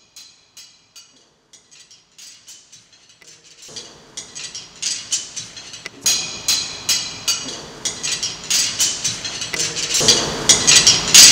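Rapid, irregular clicking and clinking taps. They are faint and sparse at first, grow denser and louder from about six seconds in, and are loudest near the end.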